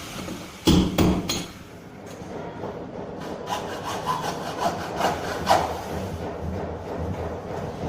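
Two sharp knocks about a second in, then steady back-and-forth scraping of a hand tool working on material.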